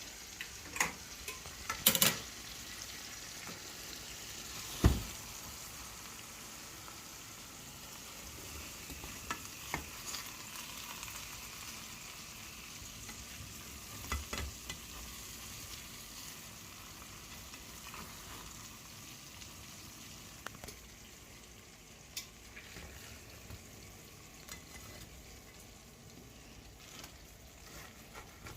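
Food sizzling in a cooking pan while being stirred, with occasional sharp knocks of the spoon against the pan; the sizzle slowly grows quieter toward the end.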